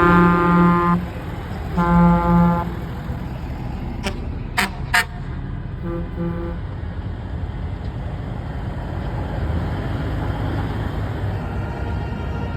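Semi truck horn blasts: two blasts of about a second each at the start, then a short double toot about six seconds in, over the steady low rumble of diesel trucks. A few sharp clicks sound between the blasts.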